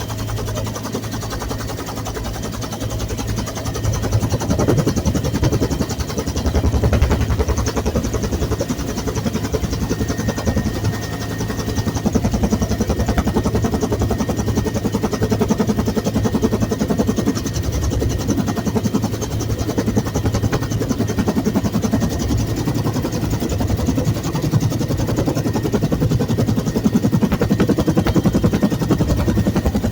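Bell UH-1 Huey helicopter running, its rotor making a rapid, steady beat over the engine noise.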